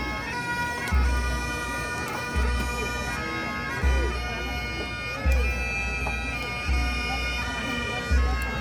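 Pipe band playing: bagpipes sounding steady drones under the chanter melody, over a low beat that comes about every second and a half.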